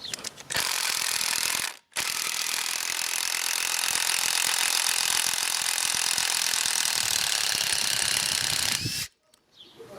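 Cordless driver spinning a broken screwdriver bit into a living tree trunk: a short run, a brief stop about two seconds in, then a long steady run that cuts off about a second before the end.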